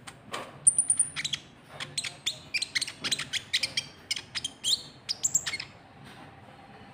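Konin trotol bird calling: a quick run of sharp, high chirps and a few short clear whistles, which stops about a second before the end.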